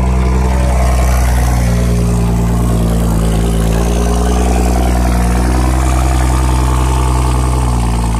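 BMW 640i's 3.0-litre turbocharged inline-six idling steadily after being started, with only slight wavers in pitch.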